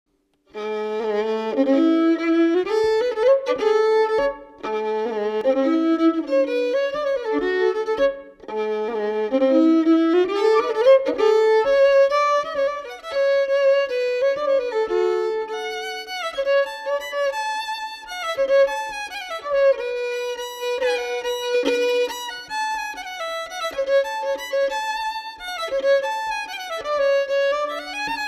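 Solo fiddle playing a Scottish tune, a single melody line with brief breaks between phrases about four and eight seconds in.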